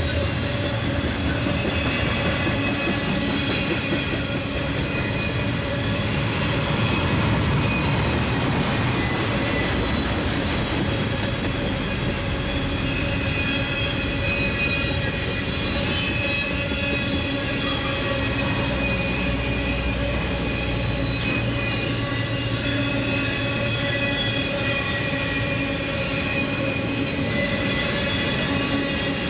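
Intermodal freight train rolling past: a steady rumble of wheels on rail, with high, sustained ringing squeal from the wheels.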